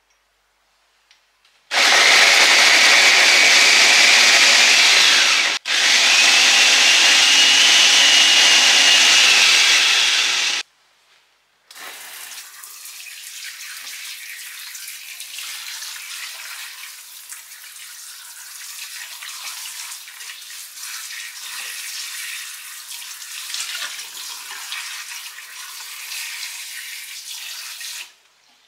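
Electric mini food chopper running loudly with a whining motor, grinding shallots, garlic and oil into a spice paste. It runs for about four seconds, stops for an instant, then runs about five seconds more. After a short pause a kitchen tap runs into a steel sink while raw chicken is rinsed by hand in a glass bowl.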